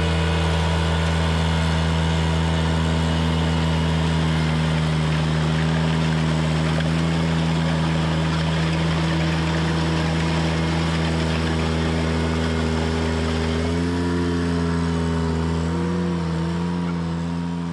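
Ventrac 4520 compact tractor's engine running steadily. About three-quarters of the way through its pitch shifts slightly and wavers, and it fades near the end.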